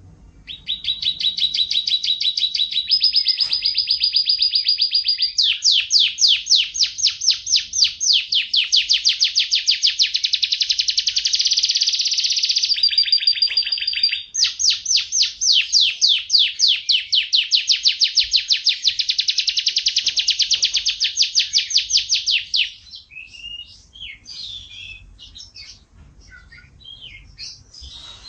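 Domestic canary in full song: long rolling trills of fast repeated notes, switching pitch from phrase to phrase. About 22 seconds in, the trills break off into scattered, quieter short chirps.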